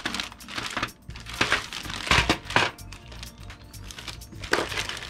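A clear plastic bag crinkling in irregular bursts as hands handle and open it, with faint background music underneath.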